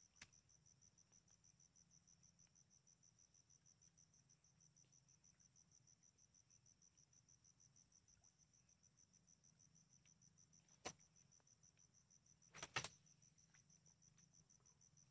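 Faint, steady high-pitched insect chirring with a fast, even pulse, broken by a few short sharp clicks about eleven and thirteen seconds in.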